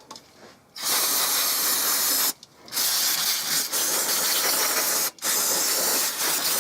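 Aerosol can of brake cleaner spraying in long hissing bursts, with two short breaks, as it degreases oily chainsaw parts.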